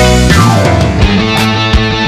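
Loud rock background music with guitar and a steady drum beat, with a falling pitch slide about half a second in.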